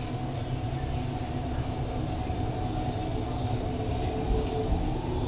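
Interior of an MTR East Rail Line R-Train electric multiple unit pulling away from a station. The car gives a steady low rumble with a whine over it, and the whine rises in pitch near the end as the train gathers speed.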